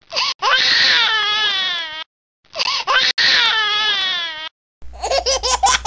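An infant crying: two long wails, each falling in pitch, used as a sound that does not match a happy face. Near the end comes a rapid, choppy run of short infant sounds.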